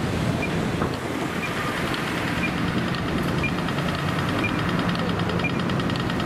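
Siemens Combino tram standing with a steady low hum, amid street noise. A short high beep repeats about once a second, and a fast run of high ticks joins about two and a half seconds in.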